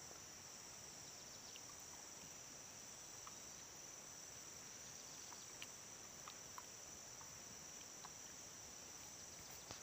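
Faint, steady high-pitched insect chorus, with a few faint clicks scattered through it.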